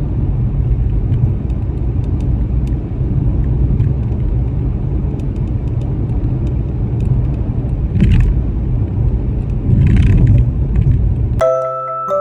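Steady low rumble of a car driving along a road, with two brief rushes of noise about eight and ten seconds in. The rumble cuts off shortly before the end, and glockenspiel-like music begins.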